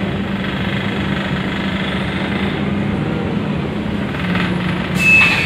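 Cabin noise inside a Scania articulated city bus: the engine and drivetrain run with a steady low hum under road noise. Near the end a sudden hiss cuts in, with a high steady tone.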